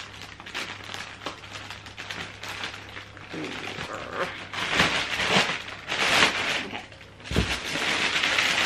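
Scissors snipping through a plastic mailing bag, followed by loud crinkling and rustling of the plastic wrapping as it is pulled open, with a dull bump near the end.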